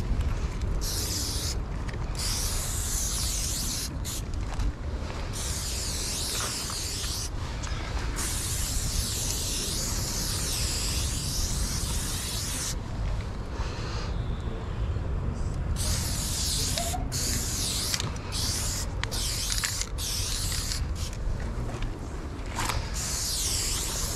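Aerosol spray paint can hissing in long strokes with short breaks between them. There is a longer pause about halfway, then quicker, shorter bursts near the end. A steady low rumble runs underneath.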